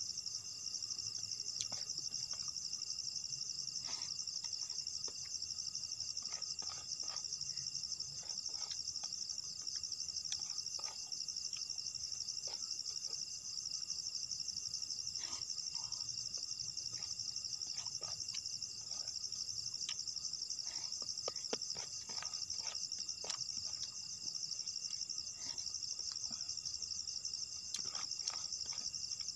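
Steady chorus of forest insects: a dense, high, fast-pulsing trill that never lets up. Scattered light clicks and taps come and go over it.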